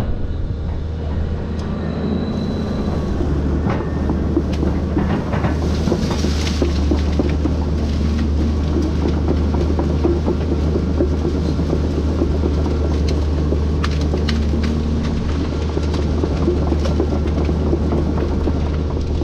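Volvo excavator's diesel engine running steadily under work, with scattered knocks and clicks over it as it clears citrus trees.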